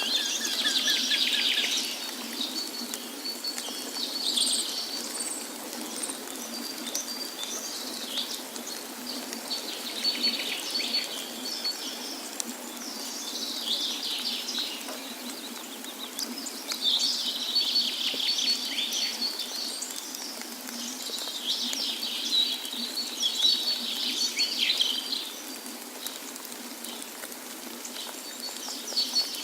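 Songbirds chirping and twittering in bursts every few seconds, over a steady background hiss. There is a quick run of repeated notes right at the start.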